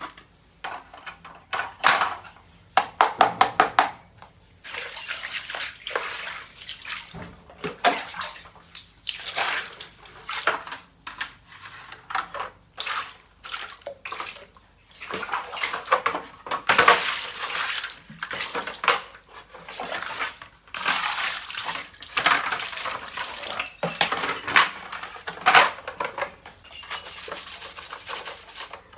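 Water running and splashing during hand washing, with a few light clattering knocks in the first few seconds.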